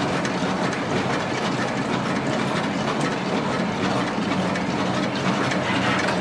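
Laboratory shaker machine running, a steady mechanical hum with a fine continuous rattle, agitating flasks of liquid culture so the agar pieces break up and the medium takes up oxygen.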